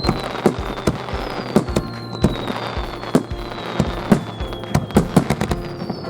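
Fireworks display: a rapid, irregular string of sharp bangs from bursting shells, with several high whistles that fall slowly in pitch, over steady background music.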